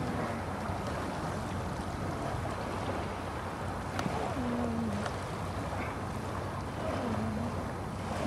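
Wind blowing on the microphone over the steady wash of small sea waves. Two faint, short low calls, each dipping in pitch, come about four and seven seconds in.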